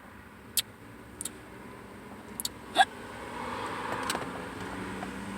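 A few short, sharp sounds in the first three seconds, the loudest a hiccup just under three seconds in. Then a vehicle's rumble builds over the last couple of seconds.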